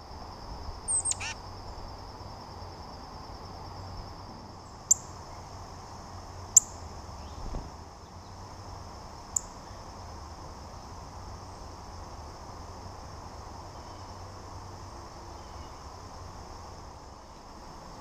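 Birds at a feeder. A short descending bird call comes about a second in, then three sharp clicks over the next several seconds, over a steady high-pitched drone and a low outdoor rumble.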